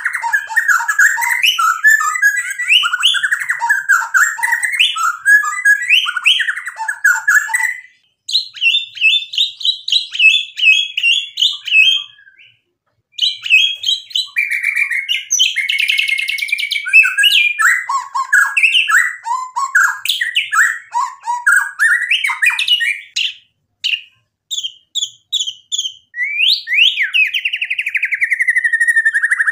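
White-rumped shama (murai batu) singing loudly: a rapid, varied run of whistles and chattering phrases packed with mimicked song material (isian). It breaks off briefly three times and ends on a long falling whistle.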